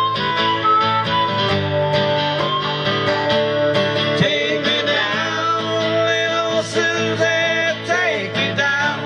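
Live acoustic country-folk music: acoustic guitars strumming steadily, with a wavering lead melody line held over them.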